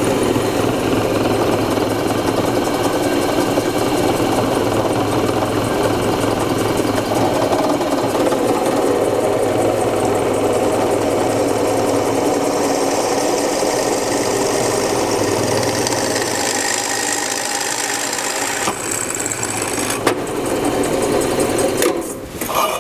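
Drill press running with a number 4 twist drill boring into a steel channel: a steady motor hum under the sound of the bit cutting steel.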